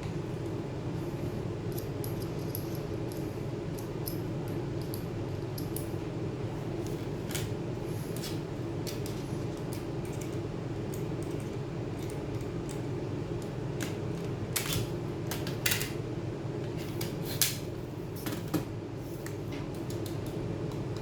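Small metallic clicks and taps of tools and parts being handled while a 2012 MacBook Pro is taken apart, scattered through, with several sharper clicks about two-thirds of the way in, over a steady low hum.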